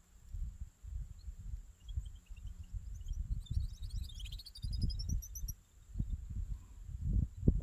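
Wind buffeting the microphone in uneven low gusts. Midway a bird calls a quick series of chirps that fall in pitch and then rise again.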